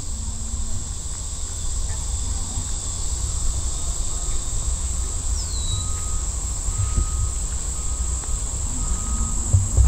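Steady high-pitched drone of insects over a low rumble. About halfway through comes a short falling whistle, followed by brief even tones repeating about once a second.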